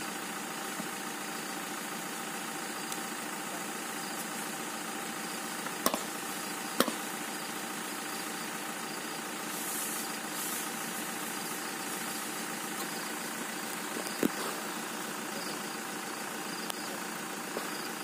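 Van engine idling steadily, with a few sharp knocks about six, seven and fourteen seconds in and a brief hiss near the middle.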